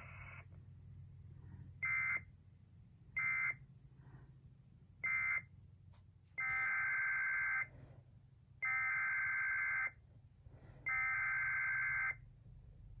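Emergency Alert System SAME data bursts, harsh two-tone digital screeches. Three short end-of-message bursts close the flash flood warning, then after a short pause three longer header bursts open the next alert.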